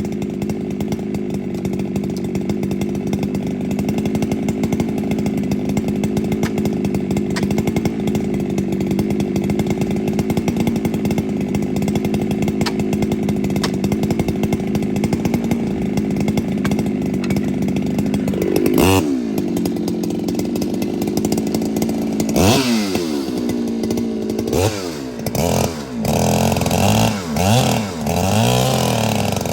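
Ported Husqvarna 395 two-stroke chainsaw running steadily at full throttle under load, as in a milling cut. About 19 seconds in the revs drop. From about 22 seconds the throttle is blipped repeatedly, the engine speed rising and falling.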